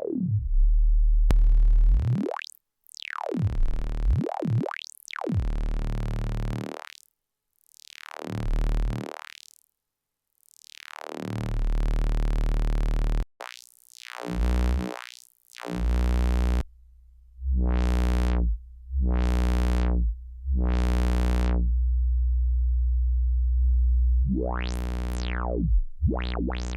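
Analog synth bass notes through a System 80 860 VCF, a Eurorack multi-mode filter modelled on the Roland Jupiter-6 filter. The cutoff is swept up and down on each note, so the tone opens bright and closes dull again over and over. Near the end comes a longer held note with a slower sweep.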